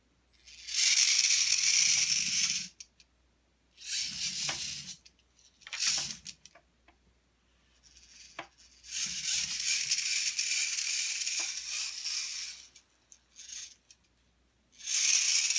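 Remote-controlled VEX IQ robot's electric drive motors and gears running in several bursts of about half a second to three and a half seconds, with pauses between. The longest run comes a little past the middle, and a few separate clicks fall in the gaps.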